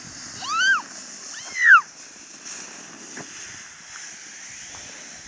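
A young child giving two short high squeals, each rising then falling in pitch, about a second apart.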